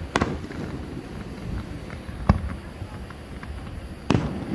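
Aerial firework shells bursting: three sharp bangs about two seconds apart, with a few fainter pops in between, over a steady low rumble.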